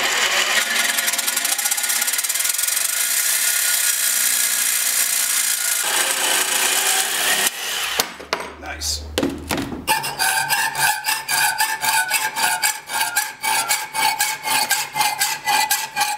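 Electric jigsaw cutting steel plate clamped in a vise: a loud, steady saw noise for about seven seconds. After a short break, a hand hacksaw cutting a metal strip in a vise, with regular back-and-forth strokes about two to three a second and the metal ringing under each stroke.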